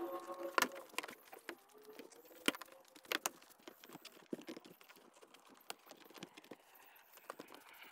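Plastic trim cover being fitted and pressed into place by hand: scattered light clicks and knocks of plastic, most of them in the first half.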